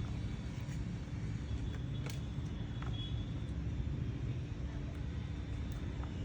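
Steady low background rumble with a few faint, short clicks from small laptop parts being handled.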